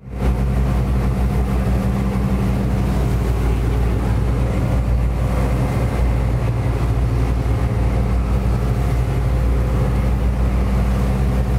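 A passenger motor boat's engine running steadily at cruising speed, a constant low drone, with water rushing past the hull.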